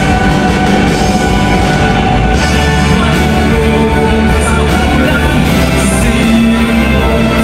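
Rock band playing live: electric guitars, bass and drums, loud and steady.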